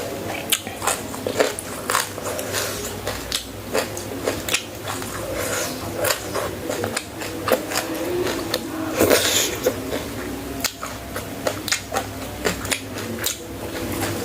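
Close-miked eating: steady chewing with many short crunches and mouth clicks, with a louder crunchy bite about nine seconds in.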